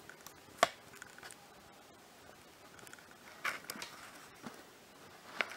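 Faint handling noises: a sharp click about half a second in, a brief rustle around three and a half seconds, and another click near the end.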